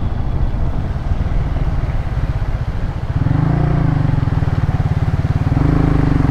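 Motorcycle engine pulling away under way, its low firing pulses dense and steady. The revs rise about three seconds in and again near the end, over a steady hiss.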